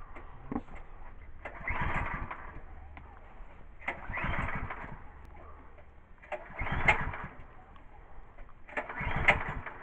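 Recoil starter of a Woodster PC 13 plate compactor's 6.5 PS petrol engine pulled four times, about once every two and a half seconds, each pull cranking the engine briefly without it catching. It is a cold start without choke, and the choke is judged to be needed.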